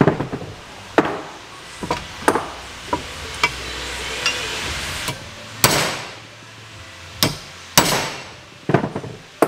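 Hammer blows on a punch, driving the old rubber bushes out of a steel suspension control arm held in a vise. About a dozen sharp, irregularly spaced strikes, some ringing briefly.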